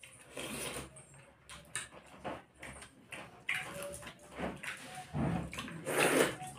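Close-miked eating sounds of two people eating rice and fish curry by hand: wet chewing, lip-smacking and finger-sucking in short, irregular bursts, the loudest near the end.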